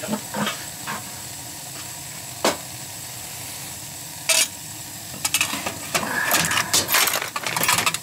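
Gas boiler's atmospheric burners firing with a steady rush of flame. A sharp knock comes about two and a half seconds in and another a little past four seconds. Over the last three seconds there is a run of metal clinks and rattles as the sheet-metal burner cover is handled back into place.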